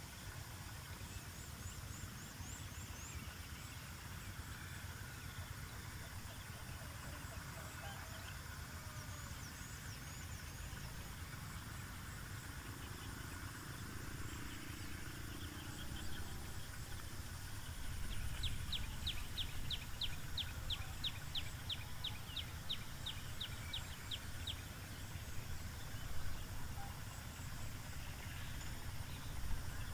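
Rural outdoor ambience: a low steady rumble with scattered faint bird chirps. Past the middle, a bird calls a quick run of about twenty high, evenly spaced notes, about three a second, for roughly six seconds.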